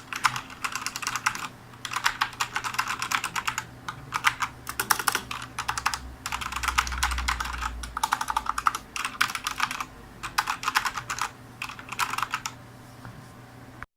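Fast typing on a Cougar Ultimus RGB mechanical keyboard with Cherry MX Red switches: rapid clacking key presses in runs with brief pauses, stopping about a second and a half before the end.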